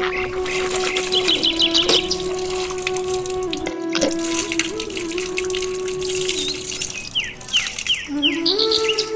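Film background score: a held drone note that shifts pitch a few times, over a steady trickling-water haze with two runs of short chirps, one early and one late. Near the end a new melodic line starts and steps upward.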